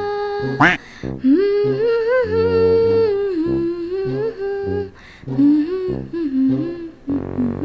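Cartoon theme music: a wordless hummed vocal melody over a light repeating beat, with a quick rising swoosh about half a second in.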